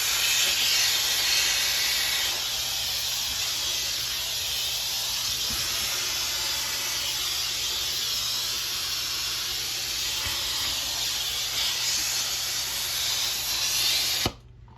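Compressed air at about 40 psi hissing steadily out of the small drilled holes of a homemade duct-cleaning air nozzle. The hiss cuts off suddenly near the end as the air is shut off.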